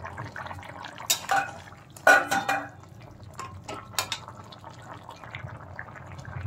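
Thin fish curry bubbling at a simmer in a metal pan, with clinks and scrapes of a metal spatula against the pan; the loudest is a ringing clatter a little after two seconds in, and there are single clinks about a second and four seconds in.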